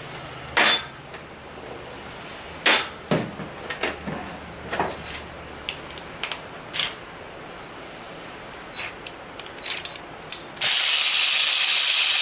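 Metal clinks and knocks as parts of a small ATV engine's cylinder head are handled. Then, about ten and a half seconds in, a handheld power tool at the cylinder head runs steadily and loudly for about two and a half seconds, taking the head back apart.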